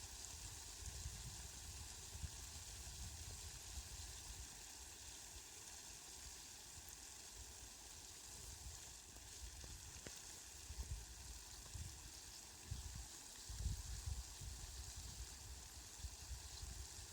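Steady hiss of falling rain, with low rumbles that come and go, strongest about three quarters of the way through.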